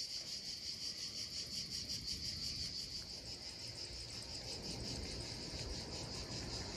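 Insects chirping in a steady, high, rapidly pulsing chorus.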